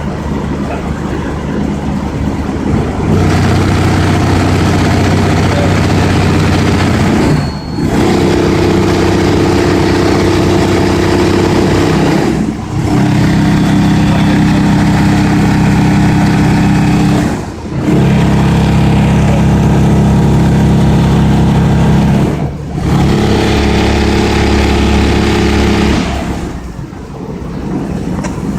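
Car-audio subwoofers in a transmission-line enclosure playing deep bass at very high volume for a loudness (SPL) test: a string of about five long, steady bass notes of four to five seconds each, with brief breaks between them.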